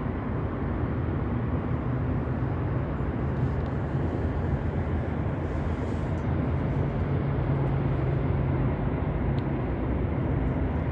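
Steady low rumble of outdoor urban background noise, with no distinct events.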